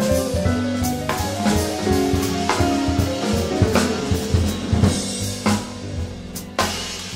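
Live acoustic jazz: grand piano playing a solo line over walking double bass and a drum kit, with frequent snare and cymbal hits and a few hard accents near the end.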